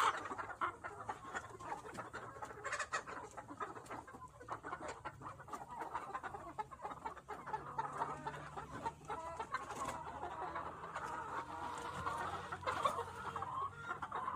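A flock of Lohmann Black laying hens clucking, mixed with many small clicks and scratches.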